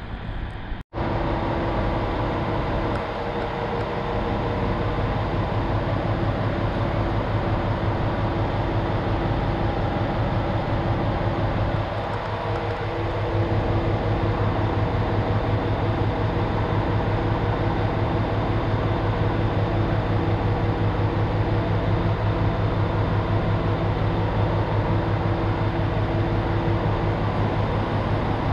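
Kumagawa Railway 'Den-en Symphony' diesel railcar idling at a standstill: a steady, pulsing engine hum that grows a little louder about halfway through.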